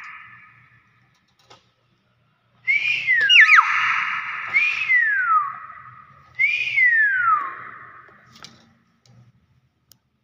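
Nias hill myna giving loud whistled calls, three in a row, each a quick upward whistle followed by a long falling glide.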